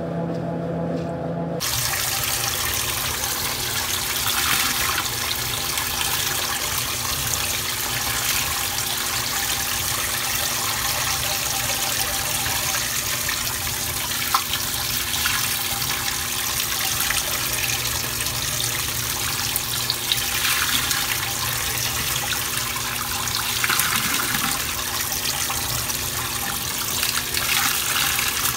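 Water pouring steadily from a top-loading washing machine's fill spout into the drum, splashing onto wet sponges and foam. It starts abruptly about a second and a half in, cutting off a brief steady hum from the machine's spinning drum.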